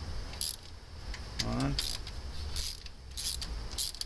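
Ratchet wrench clicking in about five short bursts as it runs the new stretch-type head bolts down on a Ford 1.9-litre cylinder head.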